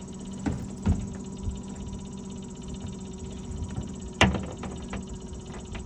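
Boat motor idling with a steady hum, with a few sharp knocks on the boat, the loudest about four seconds in.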